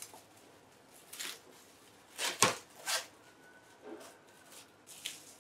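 Plastic cling film crinkling and rustling in short bursts as it is pulled from the roll and pressed around a cut melon, with a sharp knock about two and a half seconds in as the wrap roll is handled.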